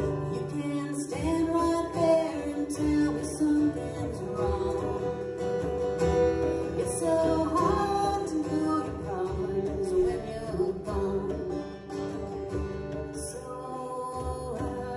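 A woman singing with strummed acoustic guitar and djembe hand drum in a live acoustic duo performance.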